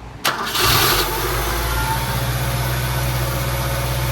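1978 BMW E21 316's four-cylinder engine being started: a click and a brief crank, and it fires almost at once, then settles into a steady idle.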